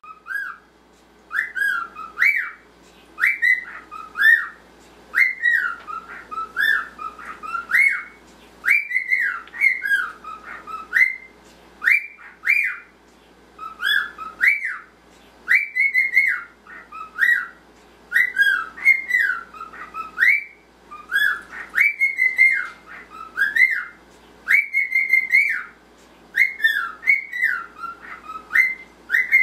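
Normal grey male cockatiel whistling his song: clear whistled notes sliding up and down, repeated in short phrases with brief pauses between them.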